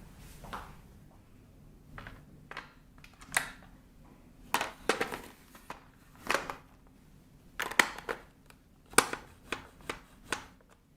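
Plastic parts of a Dyson V11 cordless vacuum's cleaner head being handled while the soft roller brush bar is swapped: a dozen or so sharp clicks and knocks at irregular intervals, some in quick clusters.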